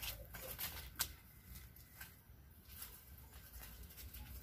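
Faint rustling and crackling of leaves and dry garden litter, with a few sharp clicks, the loudest about a second in, over a low rumble.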